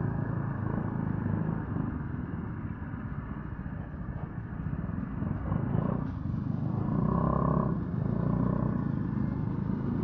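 Motor scooter's small engine running under way, with steady road rumble. A short high-pitched tone sounds about seven seconds in.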